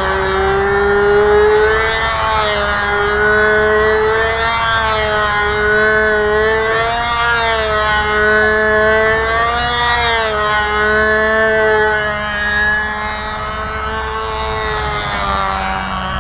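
Ringmaster control-line model airplane's engine running at high revs, a steady whine whose pitch rises and falls over and over as the plane circles the pilot.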